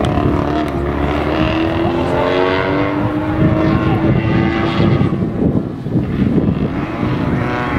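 Rally car engine running at high revs, its note climbing steadily for about five seconds, then a new rising note near the end.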